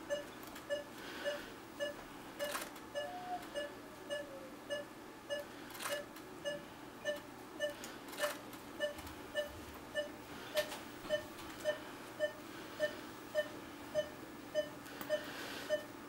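Anaesthesia monitor's pulse tone beeping steadily, a little under two beeps a second, in time with the anaesthetised dog's heartbeat, with a few sharp clicks in between.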